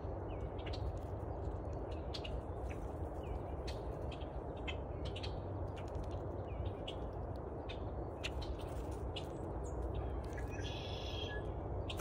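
Faint short bird calls and clicks over a steady low rumble, with a brighter call about ten and a half seconds in.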